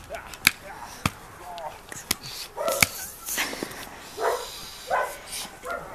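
A dog giving a string of short barks and yips, with several sharp clicks in the first few seconds.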